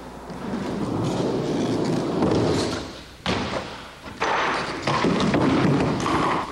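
Skateboard wheels rolling on a hard floor, with the boards slamming down hard three times, about three, four and five seconds in.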